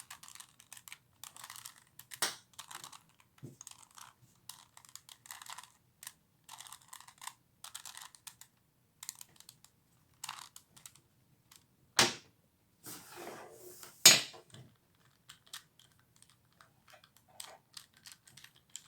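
3x3x3 Rubik's Cube layers being turned by hand: a run of light, irregular plastic clicks and rattles as the faces rotate, with two louder clacks in the second half.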